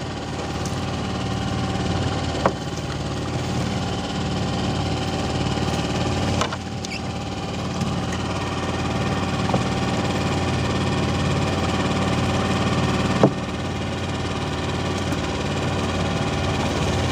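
Small engine idling steadily, with a few brief sharp clicks over it.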